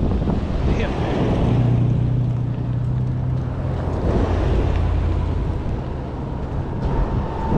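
Strong wind buffeting the microphone: a loud, steady low rumble, with a low hum sounding for a couple of seconds about a second in.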